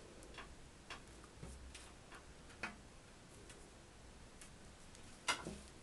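Faint, scattered ticks and clicks of straight pins being pushed through lace and fabric laid on a table, with a sharper click about five seconds in.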